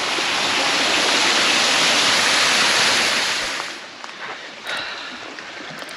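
Waterfall water rushing, a steady dense noise that drops sharply quieter a little before four seconds in.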